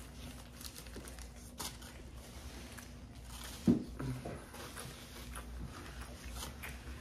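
Paper sandwich wrapper crinkling and rustling as it is handled and peeled back, with a single short low thump a little after the middle.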